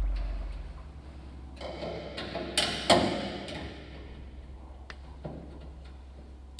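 Light metallic clicks and knocks from an Allen key and small screws as an engine-control unit is screwed onto a metal mounting bracket, with a few sharper knocks about three seconds in.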